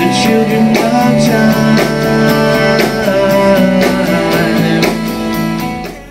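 Rock band playing live: electric guitar chords over a steady drum-kit beat, dipping in loudness near the end.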